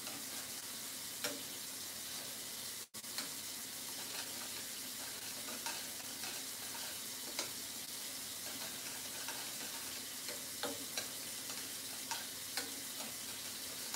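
A spoon stirring rice in a metal pot on the stove, with scattered clinks against the pot over a steady hiss from the cooking pot.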